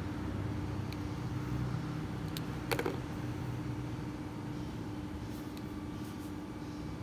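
Steady low background hum with a faint constant tone. A few faint light ticks and one slightly louder short knock about three seconds in rise above it.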